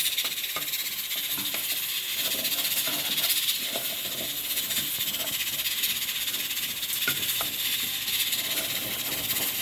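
Rice and garlic sizzling in hot oil in a pot, a steady hiss with small scattered crackles.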